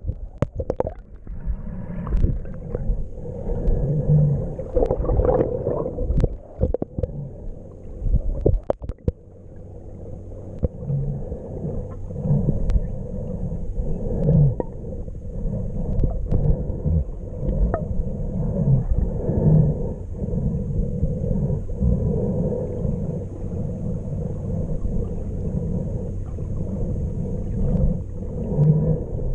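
Underwater sound of a snorkeler swimming: muffled, irregular low rumbling and gurgling of moving water, with occasional sharp clicks.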